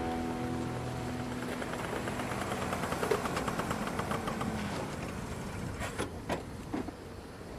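The song's last chord rings out and fades over the first couple of seconds, leaving a non-musical noise bed. A fast ticking rattle, about ten ticks a second, follows in the middle, then a few sharp clicks near the end.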